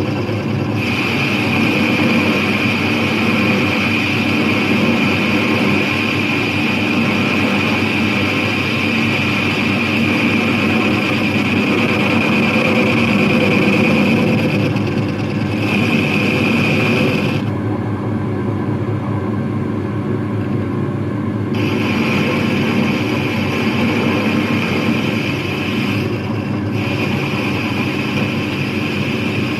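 A machine or power tool running steadily, with a high whine that drops out a few times, once for about four seconds past the middle.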